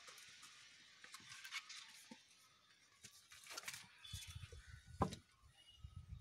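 Faint scratchy rustling and small clicks of a puppy moving about and nosing at a plastic food bowl on a sheet-covered floor, with a sharp knock about five seconds in. A low rumble of the handheld camera being moved starts about four seconds in.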